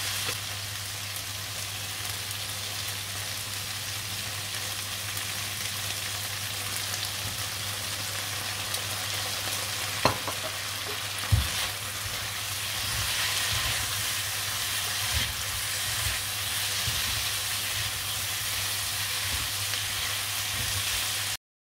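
Garlic sprouts and prawns stir-frying, sizzling steadily in a hot pan over a low hum. Two sharp knocks about halfway through and a few lighter ones later, a utensil striking the pan as it stirs. The sound cuts off suddenly just before the end.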